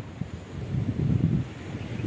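Wind buffeting the microphone: an uneven low rumble that gusts up about a second in and eases off again.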